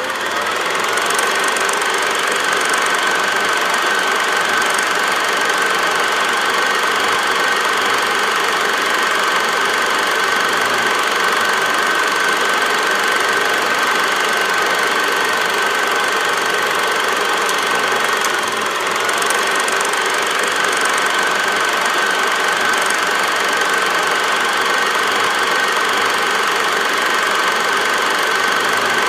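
A film projector running: a steady mechanical clatter with a constant high whine, fading in at the start.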